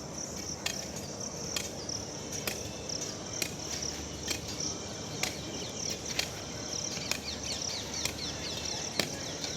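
Steady chirring of a cricket and insect chorus, with a sharp knock repeating about once a second.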